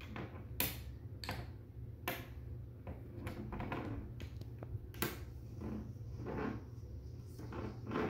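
Magnetic construction-toy sticks and steel balls clicking as they snap together and are pulled apart, a series of sharp clicks at irregular intervals.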